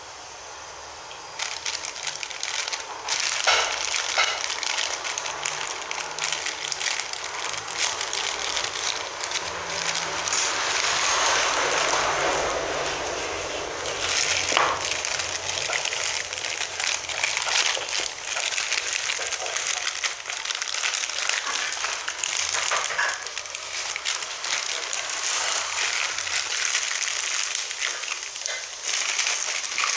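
Plastic mailer bag crinkling and rustling as it is handled and torn open, a dense crackling that starts about a second and a half in and keeps going.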